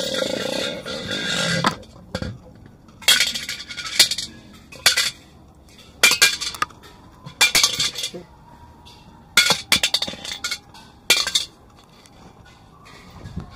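A series of short clinks, like metal or crockery knocking together, coming in small clusters every second or so. Before them, a louder stretch of sound cuts off about two seconds in.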